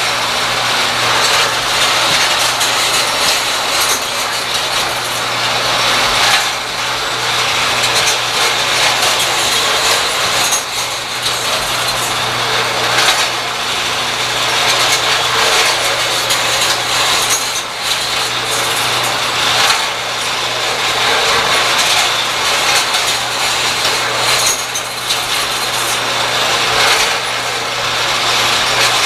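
A small engine running steadily, with the mechanical clatter of the gears and linkages it drives.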